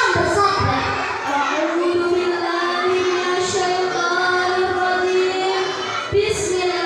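A young girl singing into a microphone, holding one long note for several seconds before a short break and a new note near the end.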